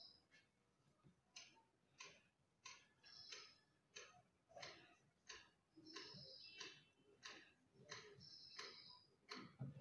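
A hand tool's tip worked in short repeated strokes over a patch on a plastic water tank: a faint, even scraping rhythm of about three strokes every two seconds, several of them with a thin high squeak.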